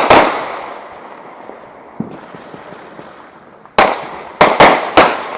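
Fireworks exploding: a loud bang at the start with a long fading tail, a faint crack about two seconds in, then four sharp bangs in quick succession near the end.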